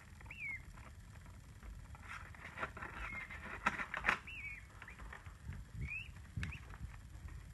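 A peachick (baby peacock) giving several short, high peeps, each a quick rise and fall in pitch, with soft taps and scrapes as it pecks at bread held in a hand; the sharpest taps come around the middle.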